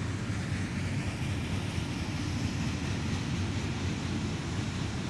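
Freight train cars rolling past: a steady low rumble of steel wheels on rail.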